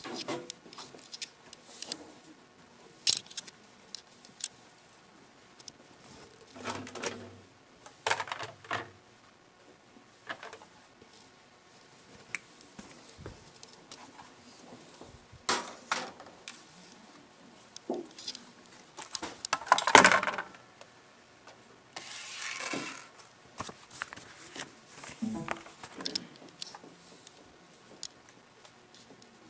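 Scattered clicks, taps and light rattles from handling the computer case and its small front-panel connector wires, with a loud clatter about two-thirds of the way through and a brief rustle just after it.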